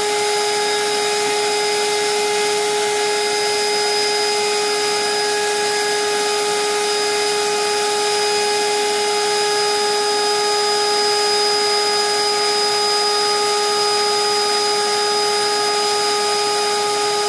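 Household vacuum cleaner running steadily: a constant rush of air with an unchanging motor whine over it.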